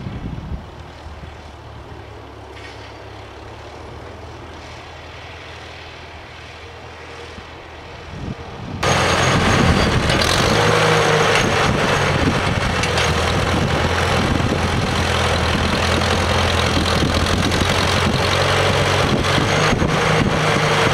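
Farmall tractor engine running steadily at a low, even pitch as it pulls a potato digger. About nine seconds in the sound becomes suddenly much louder and closer, the engine joined by clattering from the digger working the row.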